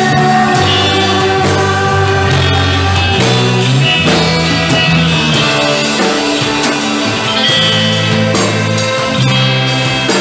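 Praise and worship music: voices singing over a band, with held chords that change every second or two and no break.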